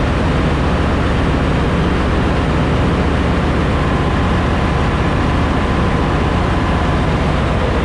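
Loud, steady machinery drone of a ship's engine room: a dense hum with steady low tones, and a faint thin whine that rises out of it about three and a half seconds in and fades near the end.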